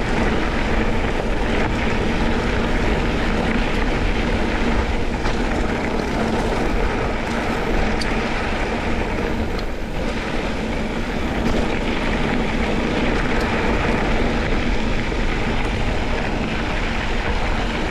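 Steady rush of wind on the microphone and mountain bike tyres rumbling over gravel on a fast downhill descent.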